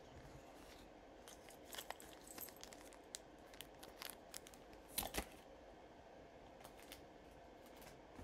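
Jewelry being picked up and handled: scattered light clicks and rustling, the loudest a quick pair of clicks about five seconds in.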